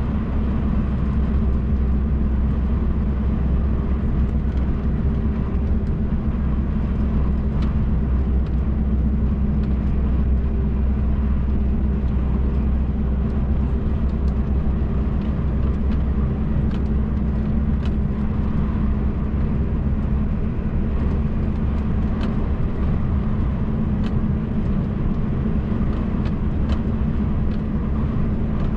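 MAN TGX truck's diesel engine and road noise heard from inside the cab while driving, a steady low drone that holds without changing.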